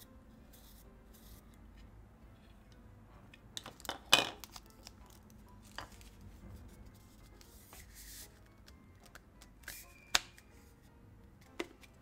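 Hard plastic parts of a handheld vacuum cleaner and its attachments being handled: scattered clicks and knocks, the loudest about four seconds in, with a brief rustle in between.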